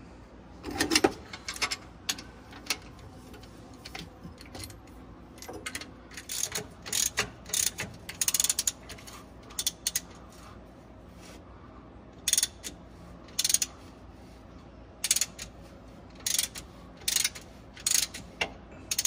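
Ratchet wrench clicking in short repeated bursts as it turns the new alternator's mounting bolt. Each turn draws the mounting bushing in to close the gap in the cast-aluminium mount.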